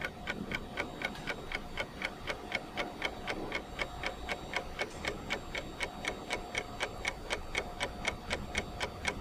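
Clock ticking sound effect, fast and regular at about four ticks a second, marking time passing in a sped-up sequence.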